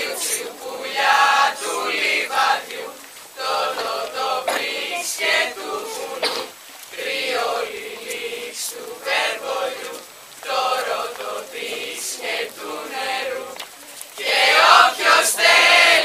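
A chorus of voices chanting in unison, in short phrases with brief pauses between them.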